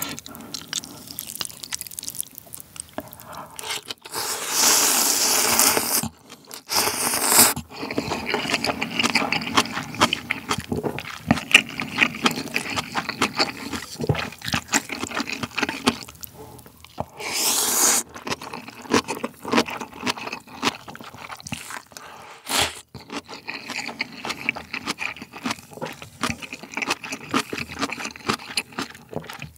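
Close-miked eating of instant ramen: loud slurps of noodles and broth about four seconds in, again around seven and eighteen seconds, between steady wet chewing with small clicks and scrapes.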